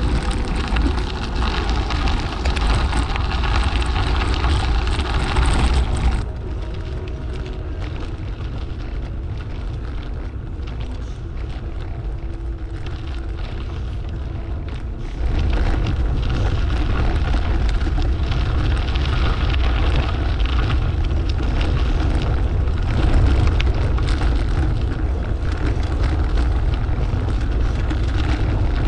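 Wind buffeting the microphone of a camera on a moving bicycle, a heavy low rumble with steady rushing noise. It drops to a quieter, thinner rush about six seconds in and comes back up about fifteen seconds in.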